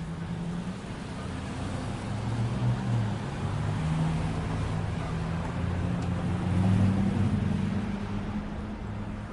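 Street traffic: a motor vehicle's engine hum growing louder to a peak about seven seconds in, then easing off as it passes, over steady traffic hiss.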